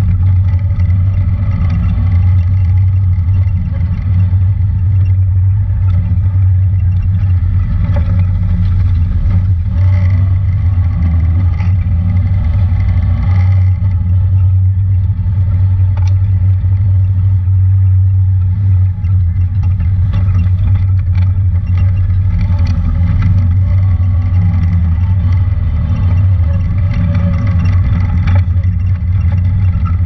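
Honda Talon 1000 side-by-side's engine running at a steady pace as it drives down a rough dirt trail, with a few brief knocks and rattles from the bumpy ground.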